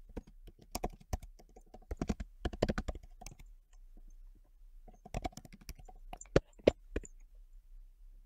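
Typing on a computer keyboard: a quick run of keystrokes for about three seconds, a short pause, then a second shorter run ending in a few separate, louder key taps.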